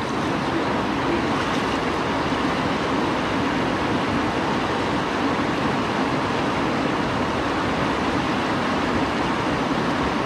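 Steady rushing of a fast mountain creek running over rapids.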